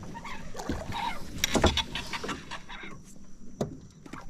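A few sharp knocks and clicks of fishing gear and hands on an aluminium boat while an angler plays a hooked fish on a bent spinning rod, with a quick cluster about a second and a half in and another near the end.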